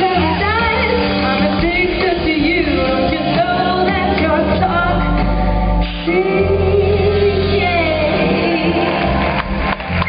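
Music with a singing voice: held, gliding sung notes over a steady bass line, with a short break in the low notes about six seconds in.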